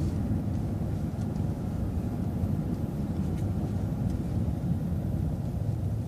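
Transit bus driving along, a steady low engine and road rumble heard from inside the bus, with a few faint clicks.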